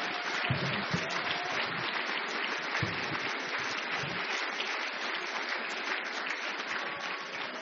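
Large audience applauding, many people clapping together, slowly dying down near the end.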